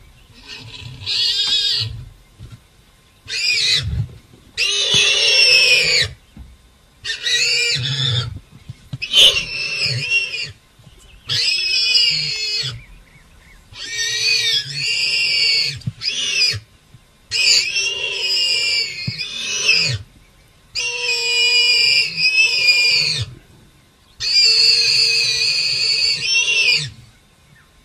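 A warthog squealing in distress while held by a lioness: about a dozen loud, high-pitched, wavering squeals, each lasting one to three seconds, with short gaps between.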